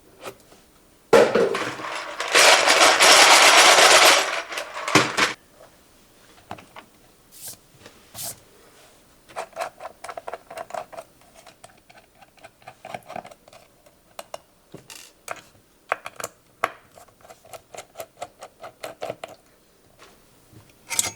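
Mechanical keyboard parts being handled during a build: a loud rustling noise for about four seconds near the start, then many light clicks and small plastic taps.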